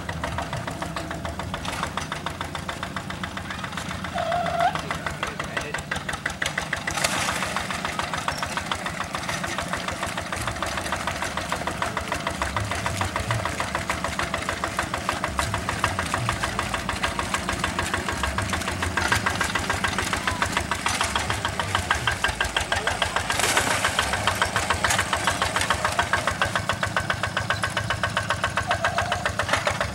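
Single-cylinder diesel engine of a two-wheel hand tractor running under load in a flooded rice paddy, a rapid, even chugging that gets a little louder after the first few seconds.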